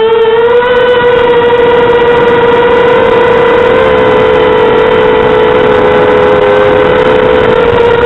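Mini quadcopter's 2400kv brushless motors and propellers giving a steady, loud whine whose pitch wavers slightly with throttle.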